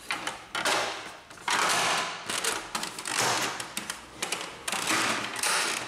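Epson XP-2100's plastic side panel being pressed onto the printer body: several short bouts of plastic-on-plastic scraping, with clicks as it is worked into place.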